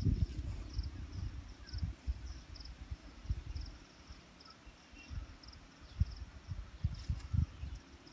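An insect chirping steadily outdoors, a short high buzzing pulse about twice a second, under irregular low thumps and rumble from the camera being carried.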